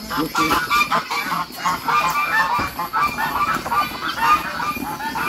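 A flock of farmyard poultry calling, many short pitched calls overlapping densely and without pause.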